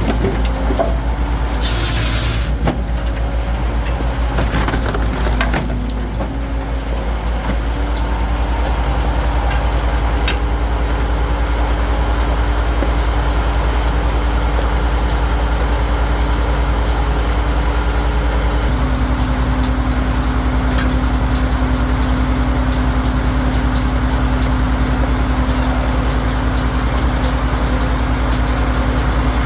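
Firewood processing machinery: an engine running steadily under load while logs are split, with wood crushing and splintering. A brief loud hiss comes about two seconds in, and the engine note steps up about two-thirds of the way through.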